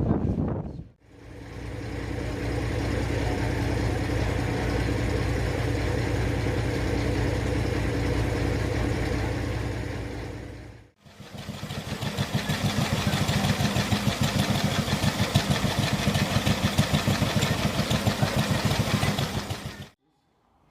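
Diesel shunting locomotive engine running in two separate takes: first a steady idle, then, after a short break, an engine with a quick, even beat.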